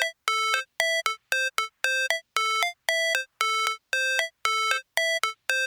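Electronic music intro: short, bell-like synthesizer notes repeat about four times a second, mostly on one pitch with an occasional slightly higher note, with a gap of silence after each.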